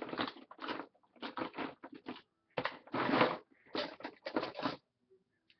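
Someone rummaging through makeup items: a quick run of rustling, handling bursts that stops about five seconds in.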